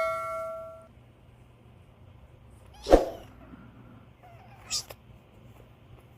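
A cat meows loudly once about three seconds in, followed near five seconds by a shorter, higher call.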